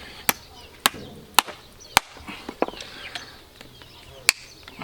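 Sharp strikes of a farrier's tools on a horse's hoof: four evenly spaced knocks about two a second, a few lighter taps, then one more loud knock near the end.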